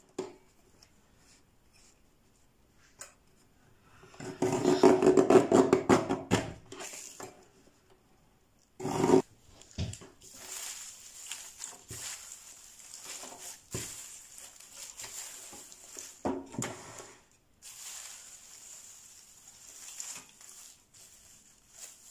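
Lever-arm guillotine paper cutter chopping through magazine pages, with short sharp cuts and the rustle of cut paper strips being gathered. A longer, louder stretch of sound comes about four seconds in.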